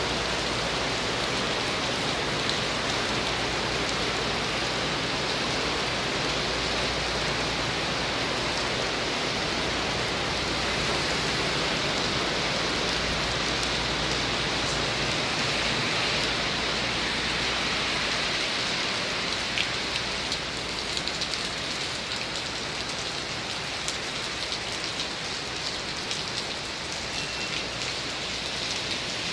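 Heavy storm rain pouring steadily ahead of a typhoon. It eases a little in the last third, where a few sharp drip taps stand out.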